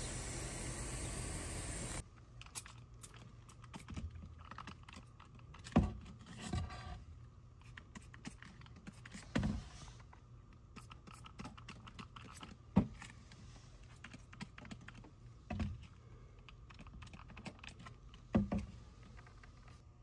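Steady outdoor hiss for about two seconds. Then a trigger spray bottle is squeezed: a sharp click and short spritz about every three seconds, spraying bubble leak-detection solution onto the re-made brass flare fitting at the air handler to check it for leaks.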